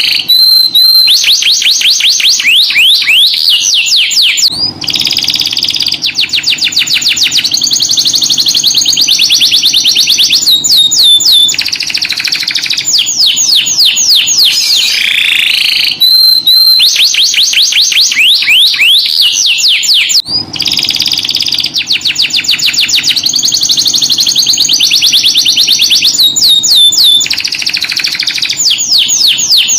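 Domestic canary singing a continuous high-pitched song of fast trills and rolls, with brief pauses between phrases; the same sequence of phrases comes round again about every sixteen seconds. This is a canary lure song, meant to prompt other canaries to sing.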